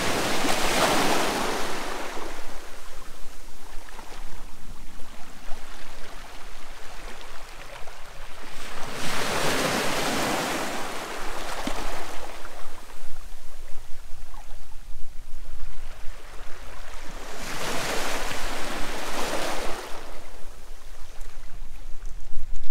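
Sea waves breaking on a shore: three swells of surf about eight or nine seconds apart, each building and washing away.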